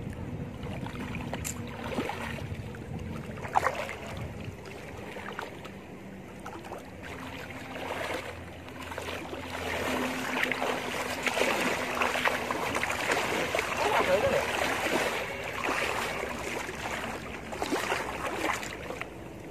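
Water sloshing and splashing as a man wades knee-deep through a shallow pond beside a gill net. About halfway through the splashing grows louder for several seconds as he kicks and stamps through the water, driving fish into the net.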